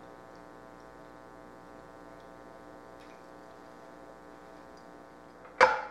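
Steady electrical hum with many even overtones. Near the end comes a single sharp knock as the ceramic mixing bowl strikes a hard surface.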